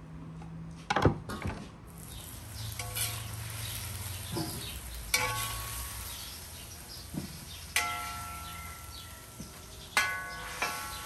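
Pieces of beef heart frying with a steady sizzle in a wide iron pan over a wood fire, while a metal ladle strikes and scrapes against a stainless steel bowl and the pan. The bowl rings after each of several clanks. There is a sharp knock about a second in.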